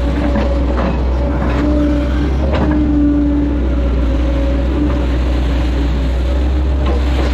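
Hitachi excavator's diesel engine running steadily under digging load, with a steady hydraulic whine. A few short clanks of the bucket and boom come as it scoops mud from the ditch.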